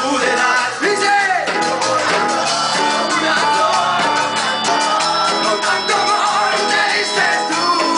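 Live band playing a Latin cumbia-style song with a male lead singer, electric guitar and drums, loud and steady.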